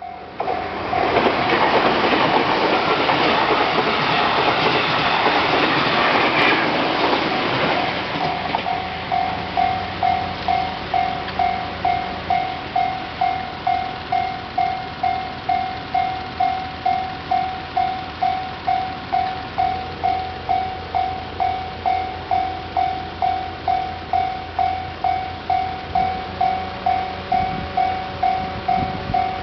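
A train passing over a Japanese level crossing, a loud rush of wheel and rail noise that dies away about eight seconds in. It leaves the crossing's warning bell ringing in a steady beat of about one and a half strikes a second.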